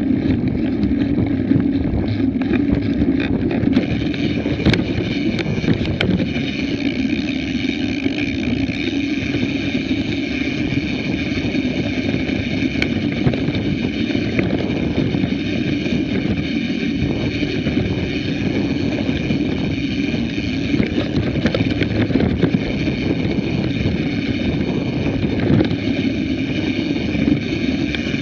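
Mountain bike riding along a dirt singletrack, heard from a bike-mounted action camera: a steady rumble and rattle of tyres and frame over the trail, with wind on the microphone, a steady high whir and scattered small clicks from roots and stones.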